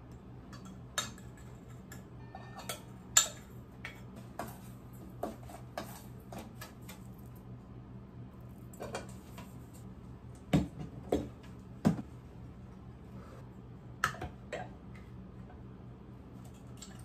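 Kitchen utensils clinking and scraping against a glass jar, a glass measuring cup and a stainless steel mixing bowl while baking ingredients are measured and mixed. The sharp knocks are scattered and irregular, the loudest about three seconds in and a cluster of louder ones near the middle, over a faint steady hum.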